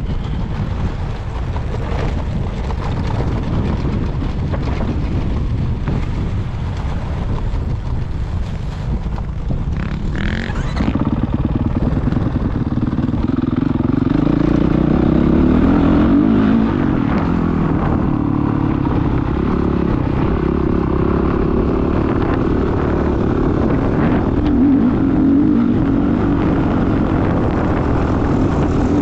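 Dirt bike engine running while being ridden, with wind buffeting the helmet-mounted microphone. About eleven seconds in, the engine gets louder and its pitch rises and falls as the throttle is worked.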